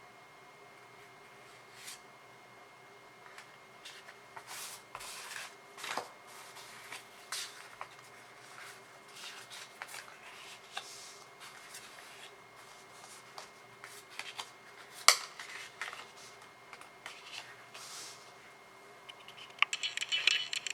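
Trading cards being handled: scattered soft slides and flicks of card against card, a sharp tap about three-quarters through, and a quick flurry of crackly handling noises near the end.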